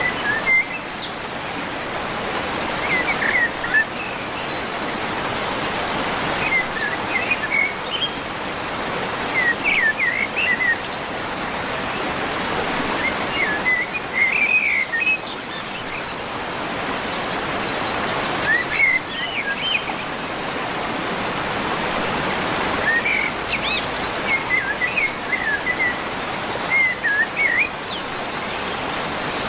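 River water rushing steadily, with birds chirping in short bursts every few seconds.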